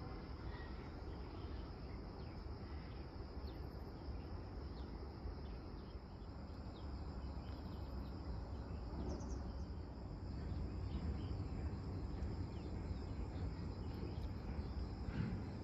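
Steady high-pitched insect drone with scattered short bird chirps, over a low rumble.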